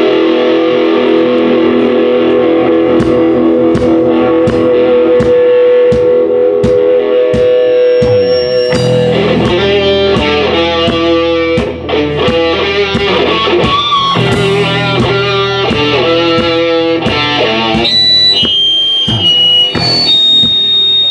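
Rock band playing live with distorted electric guitar. It opens on a held guitar chord over an even ticking beat, and the full band comes in about eight seconds in.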